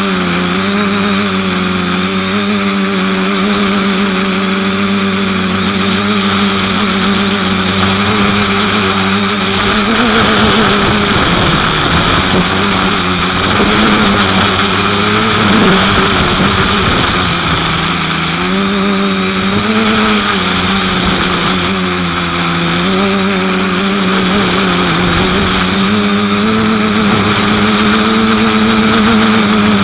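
A motor on the machine carrying the camera runs continuously: a steady hum with a high whine over it, its pitch drifting up and down and most unsettled in the middle.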